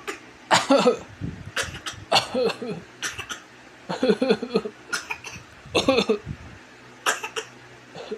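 A baby giving short pretend coughs on request, about nine in a row, roughly one a second, some of them with a bit of voice in them. They are play coughs, not a sign of illness.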